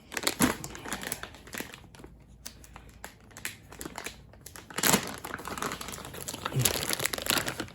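Packaging crinkling and rustling as parts of a cordless tool kit are unpacked and handled, with scattered light clicks and a louder rustle about five seconds in.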